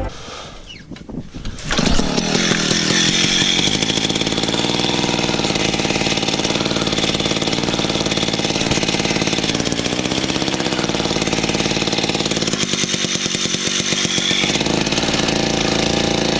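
Small gas engine running steadily at high revs: a power ice auger drilling through the ice. It starts about two seconds in.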